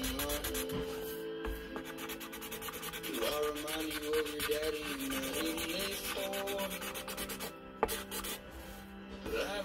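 Marker pen scribbling rapidly back and forth on paper while colouring in a large area, a fast steady scratchy rubbing, with one sharp tap near the end.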